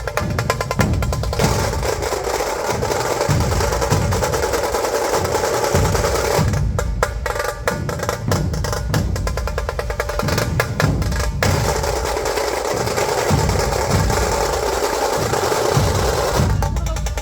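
Dhol-tasha drumming: deep dhol beats driving a fast rhythm under rapid, high, snare-like tasha rolls.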